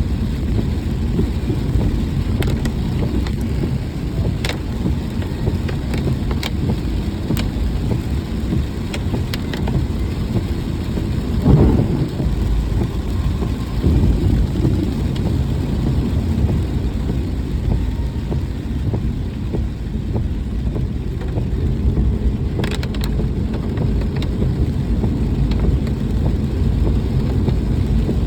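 Vehicle driving in the rain: a steady low rumble of engine and road, with scattered sharp ticks and one brief louder swell about eleven seconds in.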